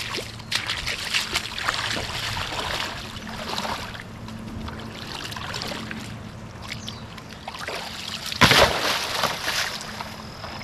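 Shallow lake water sloshing and splashing around a person's legs and hands as he wades in and lifts a chunk of concrete rubble. There is a louder splash about eight and a half seconds in as the rubble comes up out of the water.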